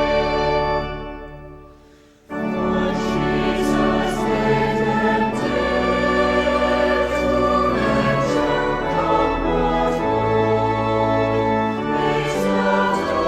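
Choral music with orchestral accompaniment. The music fades out over the first two seconds, then a new piece of choir singing starts abruptly and carries on.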